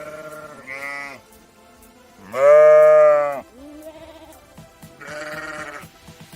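Bleating, five wavering calls in a row, the loudest about two and a half seconds in and lasting about a second.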